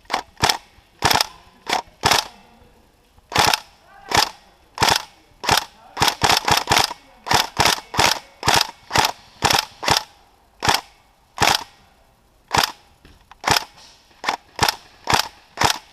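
Airsoft SCAR-L rifle firing single shots in quick, irregular succession, each a sharp crack, with a faster run of shots near the end.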